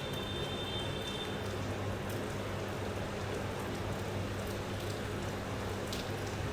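Steady rain falling, an even continuous hiss of drops on surfaces.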